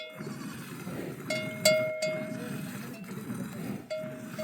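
Metal livestock bells clanking, with ringing strikes a little over a second in, a louder double strike just after, and another near the end.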